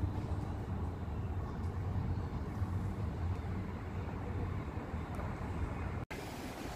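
Steady low outdoor rumble, strongest in the bass, with a brief dropout near the end.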